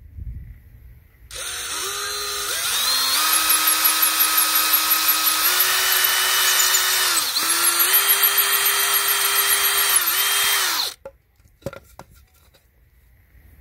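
DeWalt drill spinning a tapered drill-and-countersink bit into a board, boring the pilot hole and countersink. The motor whine starts about a second in and climbs in pitch as the trigger is squeezed. It dips briefly twice and stops after about nine and a half seconds.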